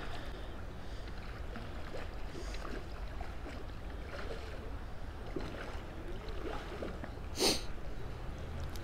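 Shallow river current running over rocks, a steady rush, with one brief louder noise about seven and a half seconds in.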